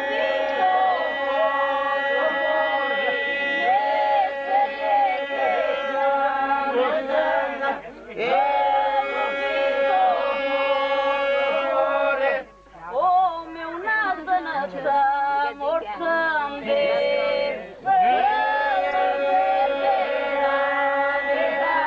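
Several voices singing together without instruments in Albanian folk polyphonic style, with a note held steadily under ornamented melody lines. The singing comes in long phrases, with brief breaks about 8, 12 and 18 seconds in.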